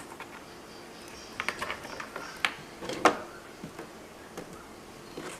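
Scattered light clicks and knocks of power-supply cables and plastic connectors being handled, the loudest about three seconds in.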